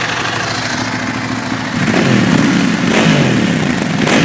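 Bimota Tesi 3D's 1078cc Ducati V-twin running steadily, then revved in quick blips from about two seconds in, the revs rising and falling with each blip.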